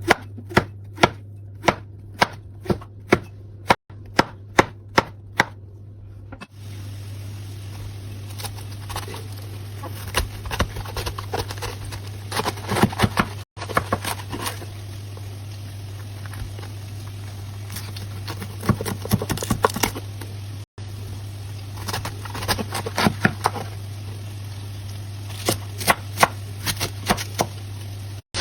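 A knife chopping vegetables on a cutting board. It starts with steady strokes about two to three a second, then turns to quick runs of rapid chops with pauses between them.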